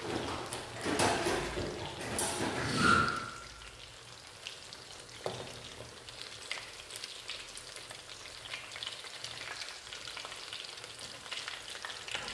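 Two breaded cutlets frying in a pan of oil: a steady crackling sizzle with light clicks as a fork turns them, in oil she later calls too cold, which leaves the breading soft. Louder, rougher bursts of noise come in the first three seconds or so.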